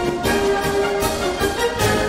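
Orchestral background music with brass and strings playing held notes.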